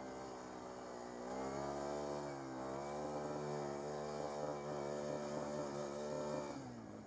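ATV engine running as the quad is ridden along a muddy trail. Its pitch climbs about a second in, holds steady through the middle, then drops away near the end as the throttle is let off.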